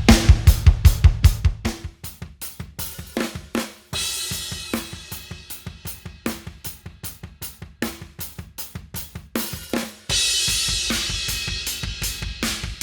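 A rock drum kit playing a steady groove, with kick, snare, hi-hat and crash cymbals, heard through its overhead microphones. The tone changes abruptly about 2, 4 and 10 seconds in, with the low end thinning after the first two seconds and a bright cymbal wash coming in near 10 seconds.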